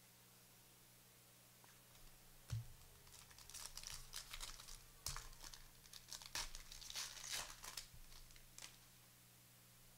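Trading card packs being torn open by hand: plastic wrappers crinkling and tearing in a run of crackly bursts, with a single knock about two and a half seconds in.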